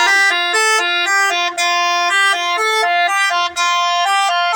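Basuri telolet multi-tone horn playing a tune: clear held horn notes that step up and down in pitch several times a second, with two brief breaks in the sound.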